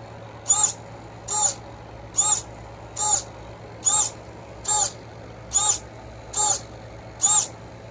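Waterproofed micro servo driven by a servo tester on full sweep, its motor whining in short bursts as the arm swings from end to end, nine times at a steady pace of a little more than one a second.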